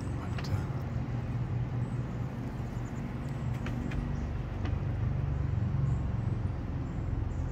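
Steady low rumble of background road traffic, with a few faint ticks.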